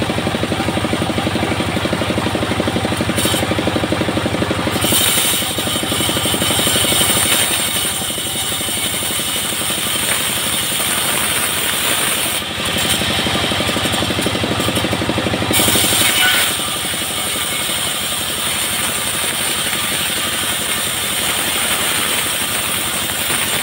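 Bandsaw mill running with its engine's steady drone, and the blade cutting coconut wood adds a hiss about five seconds in and again from about twelve to sixteen seconds.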